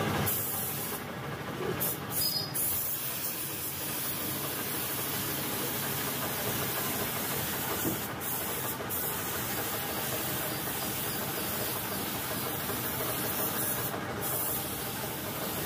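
Gravity-feed compressed-air paint spray gun hissing steadily as it sprays paint onto a van's body panels. There are a few brief breaks in the hiss where the trigger is let off, twice near the start, twice about halfway and once near the end.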